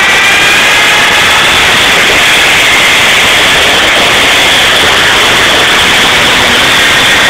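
RC car's motor and drivetrain heard from a camera mounted on the car: a loud, steady, noisy rush with a faint high whine that drifts a little in pitch as it runs along the road.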